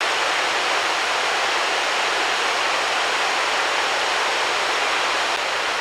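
Steady rushing of flowing river water, an even hiss without change.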